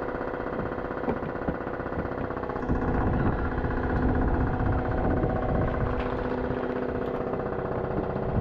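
An engine running steadily, getting louder about three seconds in.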